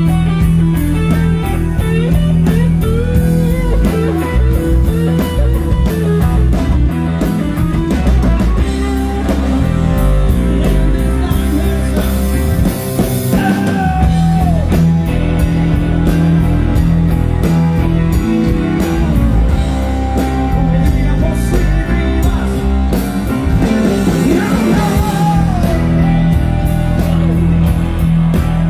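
Live band playing a rock song through a PA: electric bass, drum kit and electric guitar, with a singing voice.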